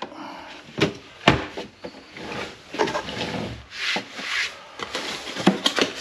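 Hard plastic lid and body of a portable 12-volt compressor fridge-freezer being handled: a few sharp knocks, and a scraping, rubbing stretch in the middle as the lid is worked and the unit is shifted on the table.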